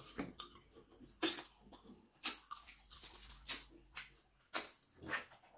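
Eating sounds: about half a dozen short, sharp mouth smacks and clicks, spaced about a second apart.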